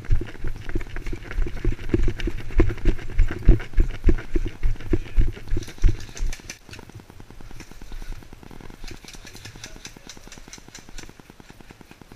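Body-mounted camera jolting with the wearer's footsteps on a gravel path: a quick run of low thuds that stops about six and a half seconds in. Under it, and left alone afterwards, is a steady fine ticking buzz that the uploader puts down to the GoPro Hero 3's spot meter running.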